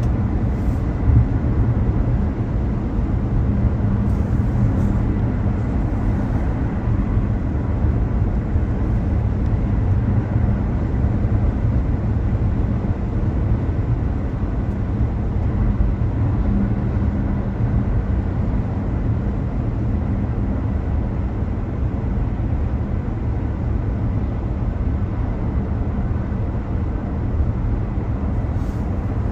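Car on the move: a steady, low rumble of road and engine noise.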